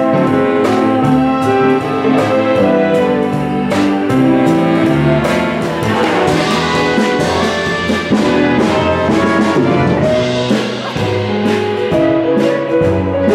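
Jazzy band music led by brass, with a steady beat.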